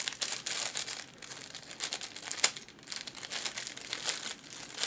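Plastic popsicle wrapper crinkling and rustling as it is pulled open, with one sharper crackle about halfway through.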